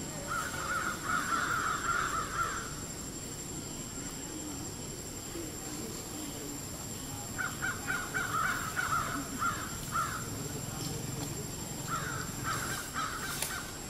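A bird calling in three bursts of rapid, harsh repeated notes: about a second in, again around seven seconds in, and near the end.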